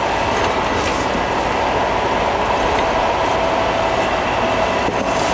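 Steady machine noise, an even hiss and rumble with two faint whining tones held throughout, and a couple of faint knocks.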